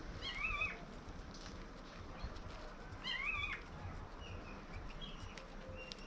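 Two short, wavering animal calls about three seconds apart, with a couple of fainter short calls near the end.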